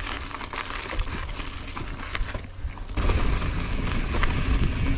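Ride noise from a 2020 YT Izzo mountain bike rolling over dirt and rock: tyre crunch and a steady rumble with scattered clicks and rattles from the bike. It gets louder and heavier from about three seconds in.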